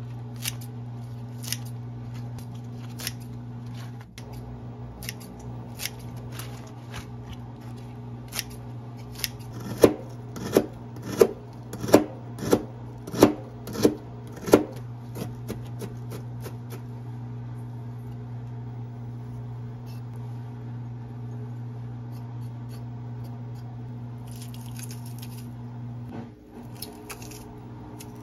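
A run of about eight sharp, evenly spaced clicks or snips, a little over half a second apart, starting about ten seconds in, with lighter scattered clicks around them over a steady low hum. Brief rustling comes near the end.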